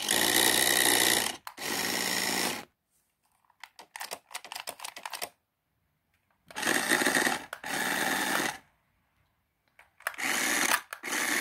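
Small electric motor and plastic gears of a toy-grade RC car whirring with a steady whine in about six short bursts as the throttle is pressed and released, the wheels spinning freely off the ground. It runs on fresh batteries.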